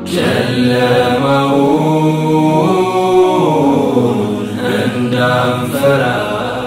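Unaccompanied vocal chanting: a single voice holding long notes that bend and waver.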